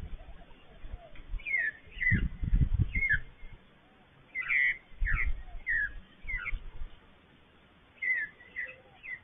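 A magpie giving a run of short, falling calls, about ten over several seconds, with bursts of low rumble between them.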